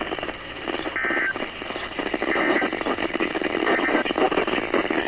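Radio static and hiss from a weak NOAA Weather Radio reception, with faint broken fragments of the broadcast coming through the noise and a brief faint tone blip about a second in.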